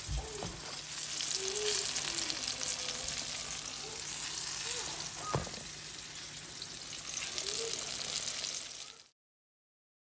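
Corn-flour-coated whiting fillets sizzling in hot corn or vegetable oil in a frying pan: a steady, dense hiss of frying, with a sharp click about halfway through. The sizzle cuts off suddenly near the end.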